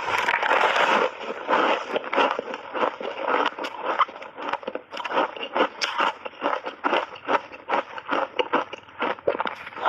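Close-miked crunching of a layered ice cake coated in matcha and milk powder: a dense crunch as a big bite is taken, then quick, irregular crunches, several a second, as the ice is chewed.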